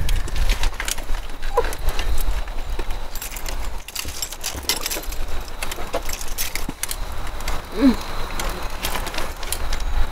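Scattered clicks, knocks and clatter of a wheelchair being held and handled while a person is helped from a car seat into it, over a low rumble, with a couple of short vocal sounds.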